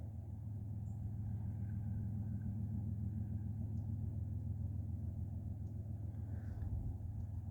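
Freight train rolling past with a steady low rumble of wheels on rail; no horn sounds.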